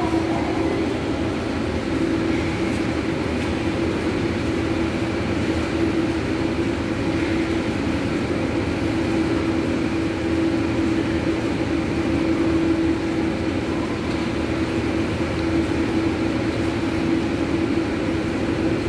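Steady machinery hum of an indoor pool room, an even rushing noise with one constant low drone throughout.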